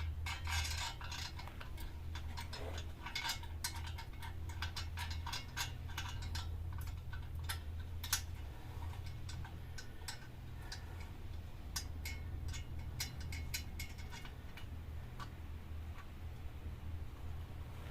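Ratchet wrench clicking in spells of quick ticks as a bolt on the exhaust heat shield is wound in, over a steady low hum.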